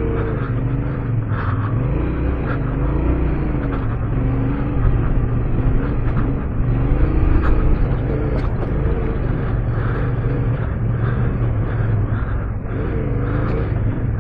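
Yamaha Ténéré 700's parallel-twin engine under way off road, its pitch rising and falling over and over as the throttle is opened and closed, with a deep rumble and a steady rushing noise from riding.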